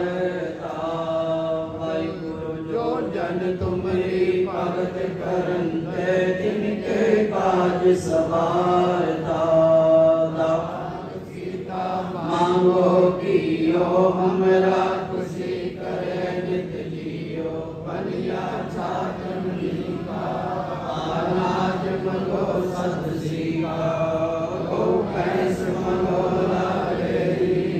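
Sikh Gurbani hymns chanted in a melodic singing voice over a steady held drone.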